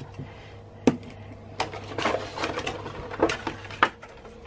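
Plastic action figure handled and run on its bottom rollers across a hard tabletop: a few sharp clicks and knocks, with a short stretch of rattling about two seconds in.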